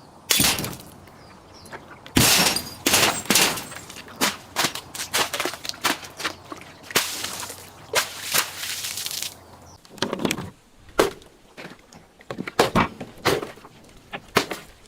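A rapid series of sharp cracks, pops and crunches as objects are crushed and break apart, thickest in the first ten seconds and sparser near the end.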